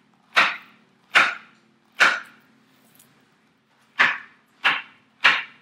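Knife slicing ripe plantains into rounds, each cut ending in a sharp knock on the cutting board. There are three chops a little under a second apart, a pause of about two seconds, then three more.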